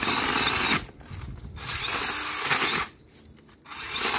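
DeWalt cordless pole saw's small chainsaw running in three short bursts, its chain cutting into thick shrub stems and stopping between bursts.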